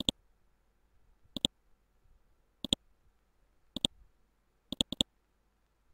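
Computer mouse button clicking: quick double clicks repeated about every second and a quarter, with three clicks in a row near the end.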